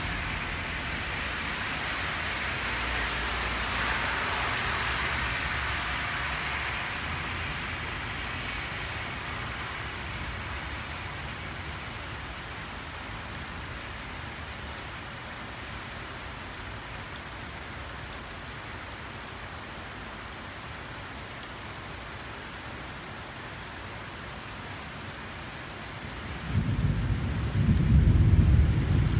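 Steady rain during a thunderstorm, with a loud deep rumble of thunder swelling up near the end.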